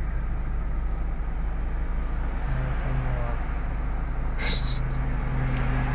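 Car idling in stopped traffic, heard from inside the cabin as a steady low hum. A brief hiss comes about four and a half seconds in.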